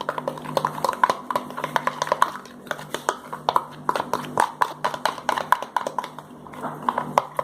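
Stirring a thickening glue-and-baking-soda slime in a container: a utensil makes quick, irregular clicks and taps against the sides, several a second, over a faint low hum.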